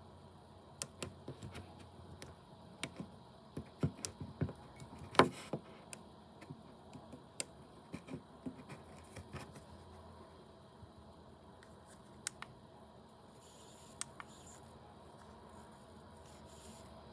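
Irregular light clicks and taps, bunched together a few seconds in with one sharper knock about five seconds in, then fewer and fainter, over a faint low hum.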